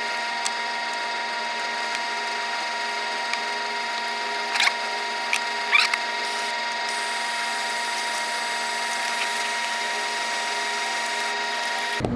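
Steady high-pitched electric motor whine, with a few light clicks over it.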